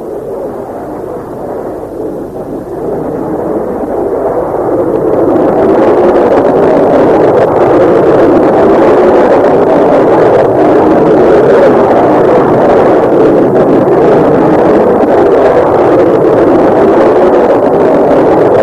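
Twin jet engines of a Martin B-57 Canberra bomber building up after a smoky start. The noise swells over the first five seconds or so, then runs steadily loud as the aircraft moves on the ground.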